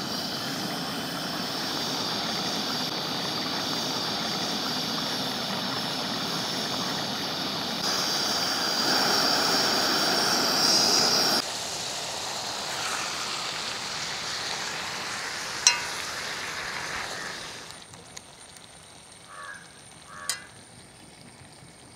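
Portable gas burner running on a high flame under an iron pot of duck roast gravy, which is bubbling and sizzling as it reduces. The steady rushing noise cuts off suddenly about halfway through. Afterwards it is much quieter, with a single click and then a couple of light spoon clinks against the pot near the end.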